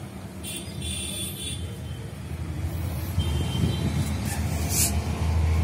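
Low motor vehicle engine rumble, growing louder toward the end.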